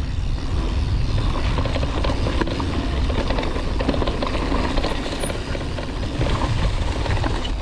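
Canyon Torque full-suspension mountain bike riding fast down a dirt and leaf-covered trail. Steady wind noise buffets the action camera's microphone. Over it the tyres run on the ground and the bike chatters and rattles over bumps throughout.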